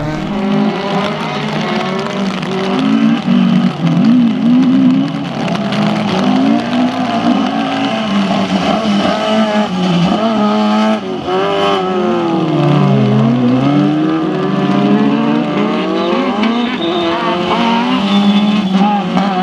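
Rallycross cars racing, engines revving hard with the pitch climbing through the gears and falling back on lifts and shifts. About twelve seconds in the revs drop deep and climb again.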